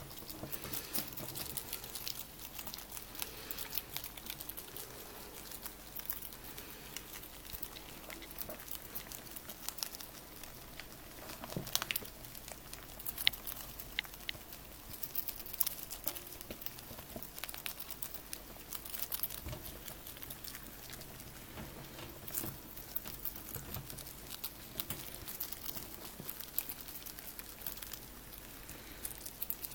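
Pet rats chewing dried mealworms: a steady run of small, quick crunching clicks and crackles, with a few louder snaps here and there.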